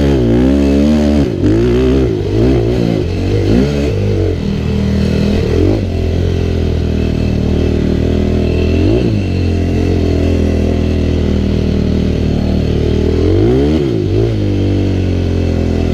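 Yamaha YFZ450R quad's single-cylinder four-stroke engine revving, the pitch rising and falling with repeated throttle blips for the first several seconds. Then it runs at a steady speed, with two short throttle dips and pick-ups.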